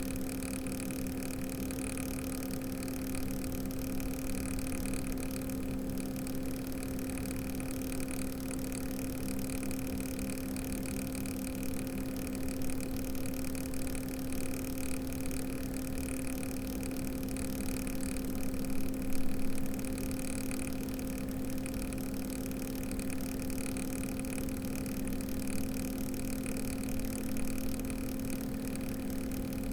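Cooler Master ML240L RGB all-in-one liquid CPU cooler running, its pump and fans giving a steady hum with a fainter high tone above. This is the strange noise that the owner fears means a failing pump or an air lock.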